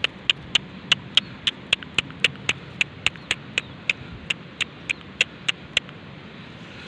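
Fingers tapping the water in a small eel hole in paddy mud, making sharp plops about four times a second that stop about a second before the end: the usual way of luring a rice-field eel out of its hole.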